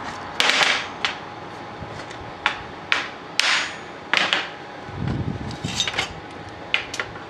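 Ball-pein hammer striking steel: a series of sharp, irregularly spaced metallic blows, one with a short ring, followed by a few lighter knocks near the end.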